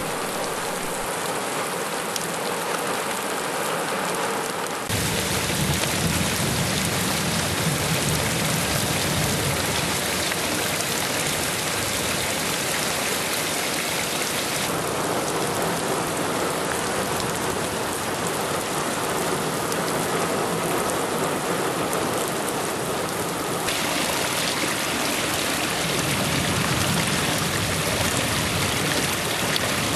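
Heavy rain falling steadily on pavement and standing water, an even hiss that shifts abruptly in tone a few times.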